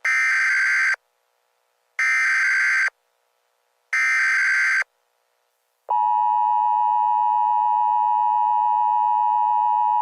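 Emergency Alert System tones: three one-second bursts of modem-like SAME header data, two seconds apart, then about six seconds in the steady two-tone EAS attention signal begins and holds.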